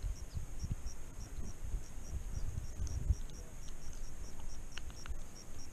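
Crickets chirping in a steady, even rhythm of about three chirps a second, over an uneven low rumble on the microphone, with a few small clicks near the end.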